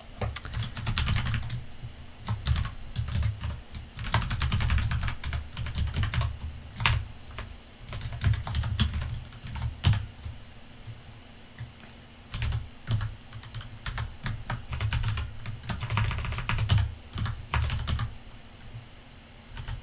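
Typing on a computer keyboard: bursts of quick keystrokes with short pauses between them.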